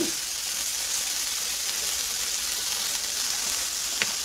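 Slices of beef skirt (chimasal) sizzling steadily on a tabletop grill tray, with one short click about four seconds in.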